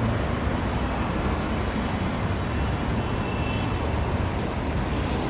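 Steady road traffic noise from cars on a busy multi-lane road, an even rumble with no single vehicle standing out.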